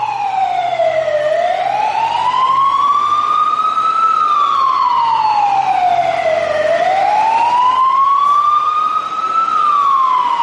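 Fire-engine siren sound effect wailing, its pitch sliding slowly up and falling back down, twice over.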